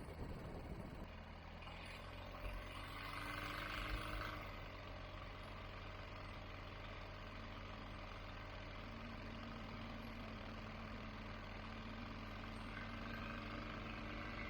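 Light-sport aircraft's Rotax 912ULS engine running at low power after touchdown, heard faintly through the headset intercom as a steady low hum, with a brief swell of rushing noise about two to four seconds in.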